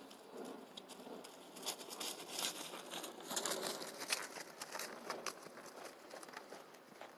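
A horse trotting past on grass: soft hoofbeats mixed with rustling, crackling noise, loudest from about two to five seconds in as the horse comes closest.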